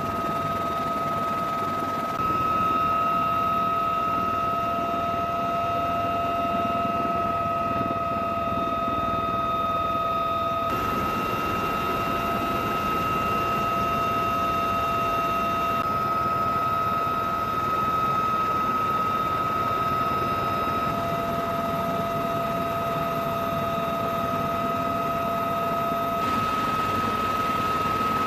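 UH-1Y Venom helicopter running: a steady high turbine whine over a broad rush of engine and rotor noise, its balance shifting abruptly a few times.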